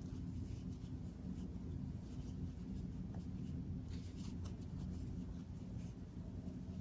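Faint rustling and scratching of yarn being pulled through stitches on a metal crochet hook as triple crochet stitches are worked, over a low steady hum.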